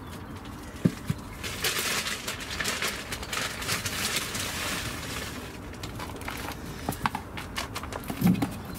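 Compost being shaken through a round wire-mesh garden sieve (riddle) into a plastic bucket: a rustling, hissing patter of soil falling through the mesh, loudest in the first half, with scattered light knocks and a heavier thump near the end.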